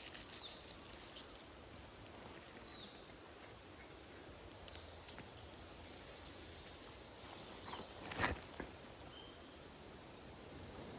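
Quiet outdoor ambience with scattered clicks and knocks, the loudest about eight seconds in, and a few short high chirps and a thin steady whistle in the middle.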